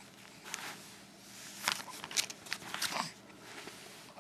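Soft rustling and scuffing of fabric as a baby squirms, in a series of short scratchy bursts between about half a second and three seconds in.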